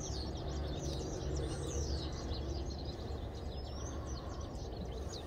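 Small birds chirping and twittering outdoors: many quick high calls, some of them falling notes, over a steady low background rumble.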